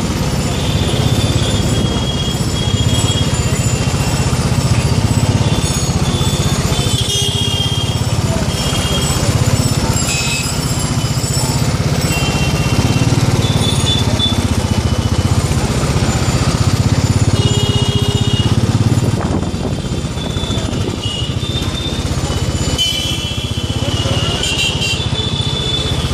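Motorbike engine and road rumble while riding through busy street traffic, with the horns of surrounding vehicles honking in short beeps again and again.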